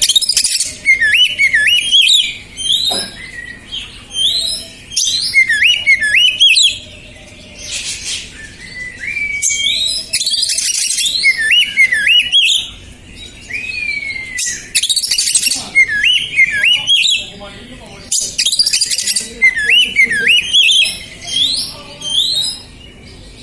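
Oriental magpie-robin (kacer) singing in an agitated state: quick whistled phrases that rise and fall, repeated every few seconds, broken by harsh raspy calls. Song of a stressed, worked-up bird, of the kind played as a lure to provoke other magpie-robins into singing.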